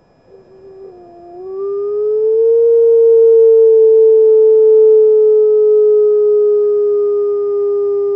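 Gray wolf howling: one long call that begins low and wavering, rises about a second and a half in, then holds steady and slowly sinks in pitch.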